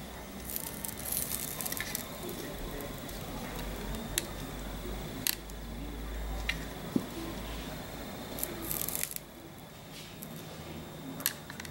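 Soldering a switch's terminals with an electric soldering gun and paste flux: a crackling hiss as the hot tip melts solder and flux, broken by a few sharp clicks of the parts and tools being handled.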